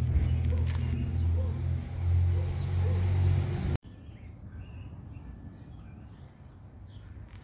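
A loud, steady low rumble that cuts off abruptly about four seconds in. After it comes quieter outdoor background with faint, scattered bird chirps.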